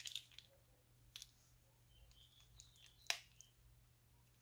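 Thick slime squeezed from a plastic piping bag into a bowl of slime: faint sticky clicks and wet pops as it flows out, with brief squeaks in the middle and one sharper pop about three seconds in.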